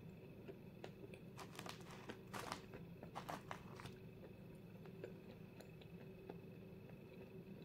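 A dry chunk of edible chalk crunching as it is bitten and chewed: a run of crisp crackles from about one and a half to four seconds in, then only faint chewing.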